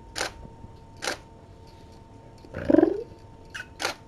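A cat gives one short meow that rises in pitch, about two and a half seconds in, among three short sharp clicks.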